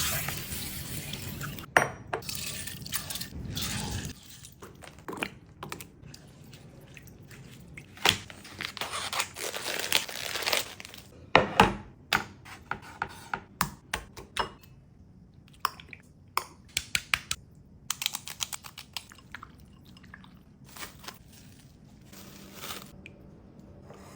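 Kitchen preparation sounds: scattered clinks and knocks of dishes and utensils being handled, with some dripping and splashing water.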